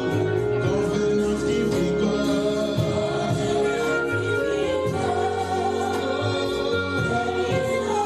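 Gospel worship music: voices singing over sustained instrumental chords.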